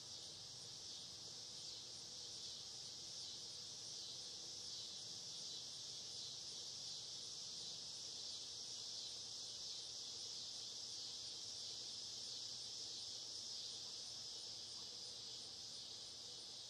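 Faint, steady high-pitched insect chorus, an unbroken shrill hiss with a fine pulsing texture.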